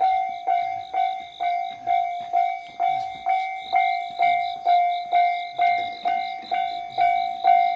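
Japanese railway level-crossing alarm ringing, an electronic bell-like ding repeated evenly about twice a second.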